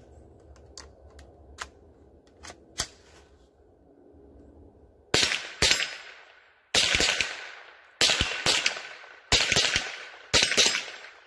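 Rossi RS22 semi-automatic .22LR rifle firing a rapid string of CCI Blazer 38-grain lead round-nose rounds, sharp cracks in quick pairs and groups starting about five seconds in, after a few light clicks of handling. The rifle feeds and cycles every round without a malfunction.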